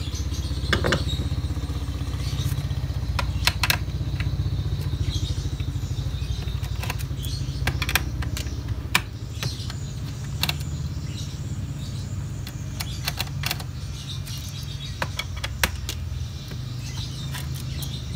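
Scattered small clicks and taps of a screwdriver and screws on a laptop's plastic bottom cover, over a steady low rumble.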